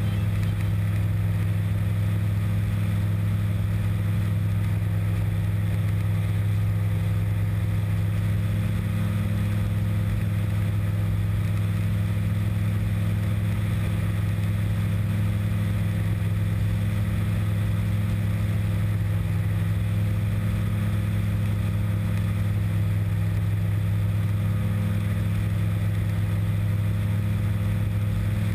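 Aero Adventure Aventura II amphibian's engine and propeller running steadily in cruising flight: a low, even drone.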